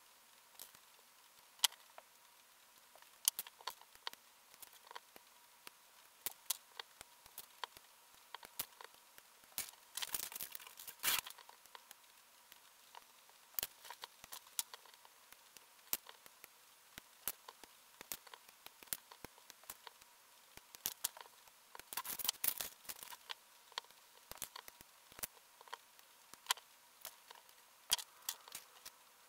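Hobby nippers snipping small plastic model-kit parts off their runners and trimming them: many sharp, irregular clicks, with plastic pieces tapping on the wooden table. Brief bursts of rustling handling noise come about ten seconds in and again a little after twenty seconds.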